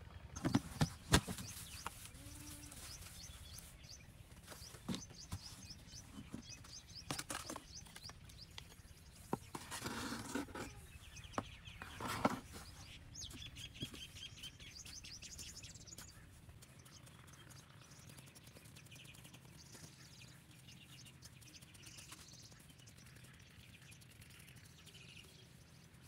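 A metal hand trowel scraping and digging in dry, crumbly soil, with a few sharp knocks near the start. Small birds chirp now and then in the background.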